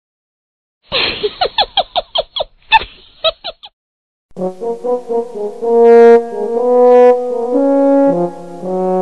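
Brass-like comedy sound-effect sting. A rapid run of short clipped sounds comes first. After a brief gap, several held horn notes follow, stepping from one pitch to the next.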